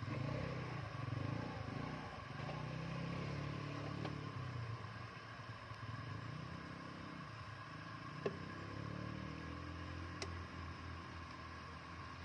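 Boat engine running steadily, its low pitch wavering, with a constant thin whine over it. A few sharp clicks stand out, the loudest about eight seconds in.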